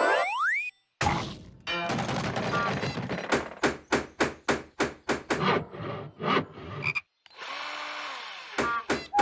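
Cartoon sound effects: a quick rising whistle, then a long run of raspy, croak-like pulses that speed up, followed by a short rushing hiss and a few sharp clicks near the end.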